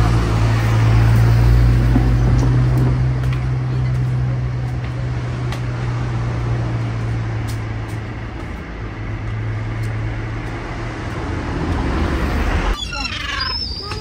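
A motor vehicle's engine running with a steady low hum over broad street noise, fading after about eight seconds. Near the end the sound cuts to birds chirping.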